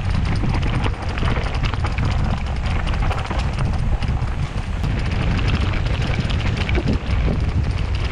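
Mountain bike rolling fast down a dirt and gravel singletrack: tyres crunching over the ground and the bike rattling over bumps with a dense run of clicks, over a steady low rumble of wind on the microphone.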